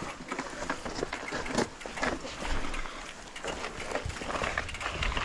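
Mountain bike clattering down a rough, wet trail: irregular knocks and rattles from the bike over a steady rushing noise.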